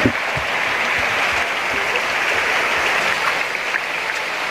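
Heavy rain falling in a steady, dense hiss.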